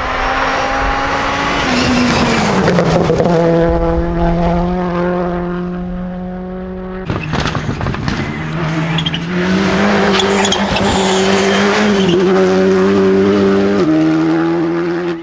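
Rally car engine at high revs on a special stage, its note dropping about two seconds in. After an abrupt cut about seven seconds in, an engine note steps up and down between gears.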